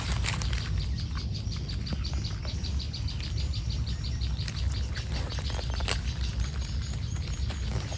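Rural outdoor ambience with a rhythmic, high-pitched chirping from a small animal, about six chirps a second, starting about a second in and running for several seconds. A few sharp clicks sound near the end, over a steady low rumble.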